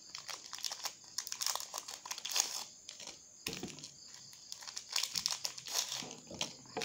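Plastic snack wrapper crinkling and tearing as it is handled and opened by hand, in irregular crackles.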